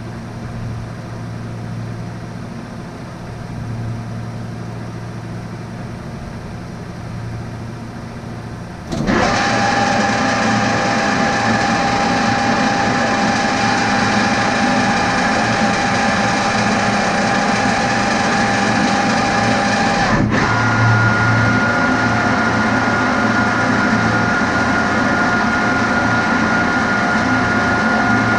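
Machine-shop machinery running steadily with a low hum. About nine seconds in it turns much louder and noisier, with a steady whine, and the whine jumps to a higher pitch about twenty seconds in.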